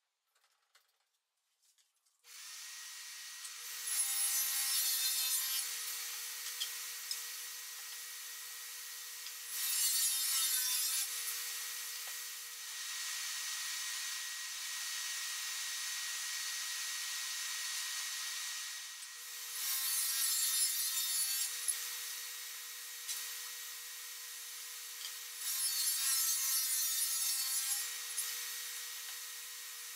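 SawStop table saw running with a steady whine, coming in a couple of seconds in. It gets louder and noisier four times, for about two seconds each, as the blade rips through plywood.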